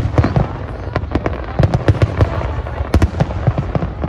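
Fireworks going off in quick, irregular succession: a dense run of bangs and sharp cracks over deeper booms.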